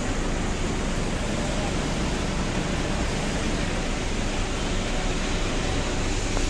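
Goods truck running, a steady even rumble and hiss that does not change.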